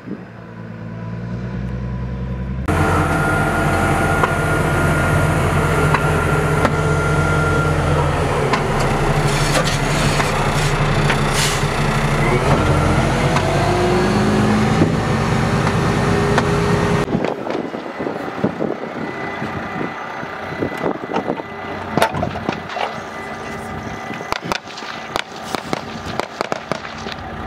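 Eight-wheeled armoured personnel carrier's engine running as it drives, loudest and densest from inside the cab, with the pitch rising for a few seconds as it speeds up. After that the engine drops away and a run of sharp clicks and knocks follows as soldiers dismount through the rear doors.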